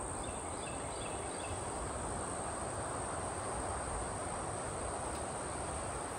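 Insects trilling on one steady high note over a soft, even outdoor hiss, with a few faint chirps in the first second and a half.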